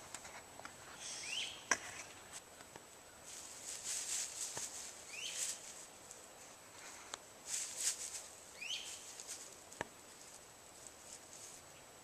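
Coyote gnawing and crunching on a treat, in bouts of crisp crunching with a few sharp cracks, the loudest a little under two seconds in. A bird gives a short rising chirp every three to four seconds.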